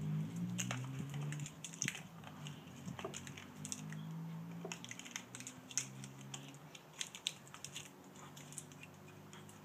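Split pieces of a spruce log knocking and scraping against each other as they are fitted back into a round: irregular light clicks and taps, over a low hum.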